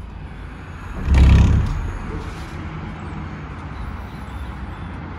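Street noise through a just-opened window: a steady hum of city traffic, with a loud low rush about a second in.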